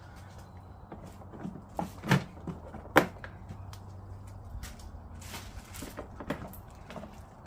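Hard plastic parts of a kids' ride-on car clicking and knocking as they are handled and pressed into place: a series of sharp knocks, the two loudest about two and three seconds in, with lighter clicks after, over a low steady hum.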